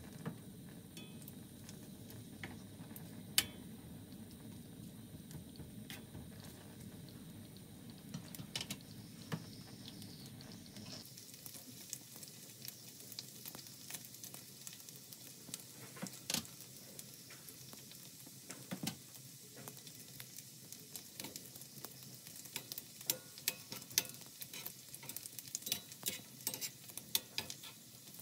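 Chorizo slices sizzling in oil in a copper frying pan, with crackling pops that come thicker in the second half. A few sharp clicks of metal tongs against the pan as the slices are turned.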